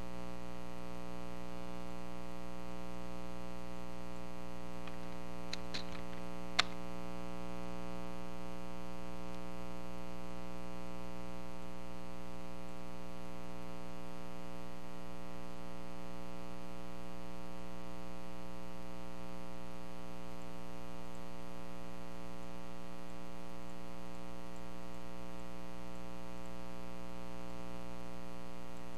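Steady electrical mains hum with many evenly spaced overtones, picked up by the recording microphone. A few short clicks come about six seconds in, and the last of them is the loudest.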